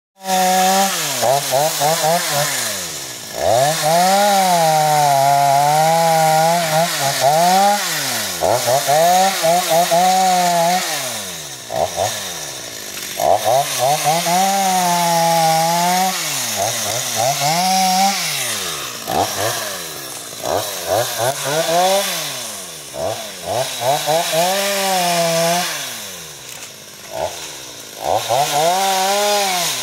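Stihl MS 250 two-stroke chainsaw cutting through low brush and saplings. It revs up to full throttle again and again and drops back toward idle between cuts.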